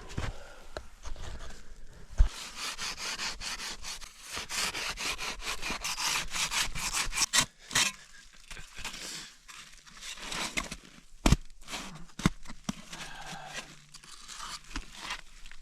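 A hand tool scraping and cutting into packed snow in long rasping strokes, with a few sharp knocks where it strikes.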